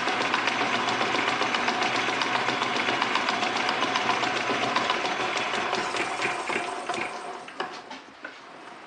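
Metal lathe running with a steady rapid mechanical rattle, then switched off and spinning down, its sound fading over the last few seconds to a stop with a few clicks.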